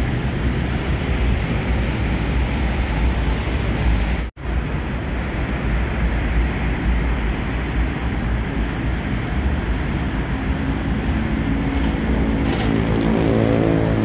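Steady road-traffic noise from the busy roads and elevated highway alongside the river, heavy in the low end. It cuts out for an instant about four seconds in, and a low engine drone with a steady pitch joins near the end.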